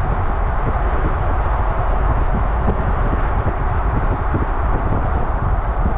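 Wind buffeting the microphone over the road and tyre noise of a moving car: a loud, steady rumble with a rushing hiss.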